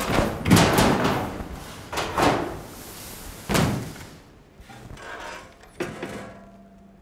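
Loud bangs, each with a short ringing tail: two quick pairs and then a single one over the first four seconds. After them come a few softer knocks over a faint steady hum.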